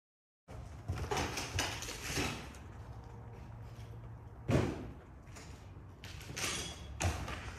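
Irregular knocks and scuffs over a low steady rumble, starting abruptly about half a second in; the loudest knock falls about four and a half seconds in.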